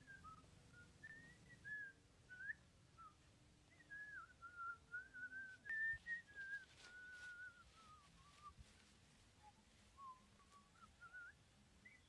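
A person whistling faintly, a slow wandering tune whose single pitch slides up and down.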